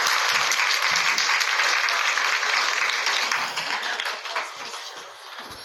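Applause after the talk, a steady patter that fades over the last second or two and then cuts off abruptly.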